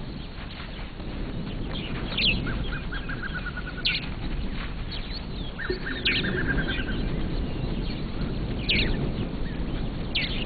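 Birds calling: sharp falling chirps every couple of seconds, and two short rapid trills, over a steady low background hum of open country.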